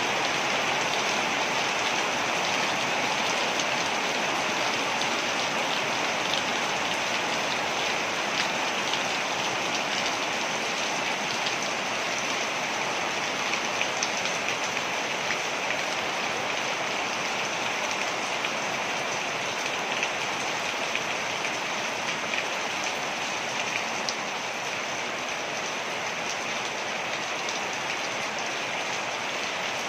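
Waterfall: a steady rush and splash of falling water, with scattered drip-like ticks on top.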